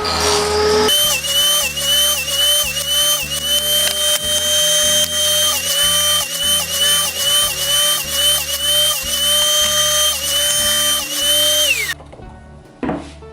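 Handheld power tool motor running with a steady whine, its pitch dipping briefly again and again as it takes load in the wood. It winds down near the end, and a few sharp knocks follow.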